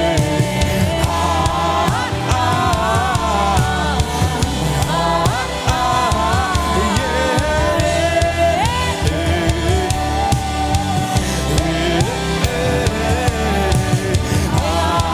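Upbeat worship song from a live worship band, with singing carrying the melody over a steady drum beat.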